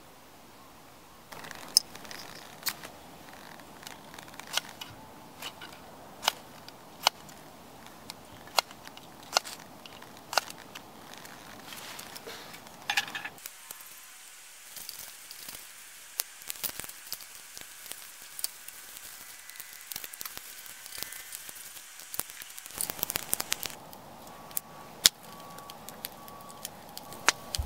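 Fire crackling, with irregular sharp pops scattered through it.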